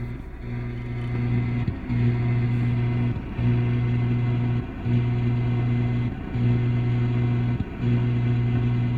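Radio-frequency interference heard through an AM radio tuned near 950 kHz: a loud, steady buzz with many overtones that drops out briefly about every one and a half seconds in a regular rhythm. The operator suspects it may be tied to the tower's strobe lights and could be behind the trouble on the repeater.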